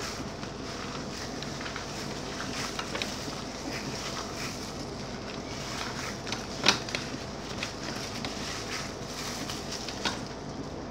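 Plastic-gloved hands kneading and squeezing a wet minced pork mixture in a stainless steel bowl: continuous squishing and glove crinkling with many small clicks, and one sharper knock about two-thirds of the way through.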